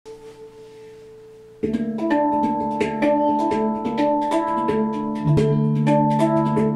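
Overtone handpan, acoustic guitar and bass guitar playing an instrumental piece together. A faint held note at first, then about one and a half seconds in the trio comes in at full level with quick struck handpan notes over plucked guitar, and a deep low note joins about five seconds in.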